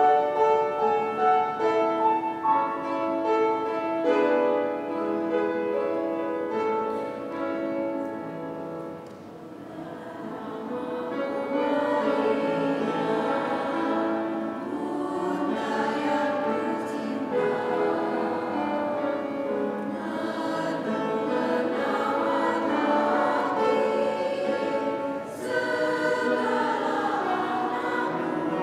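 Choir singing a two-part hymn arrangement with keyboard accompaniment. For roughly the first nine seconds the keyboard plays an introduction alone, then the voices come in.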